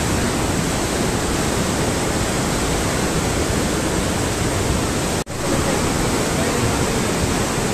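Steady rushing noise of the Beas River in flood, fast muddy water in spate, cut off for an instant about five seconds in.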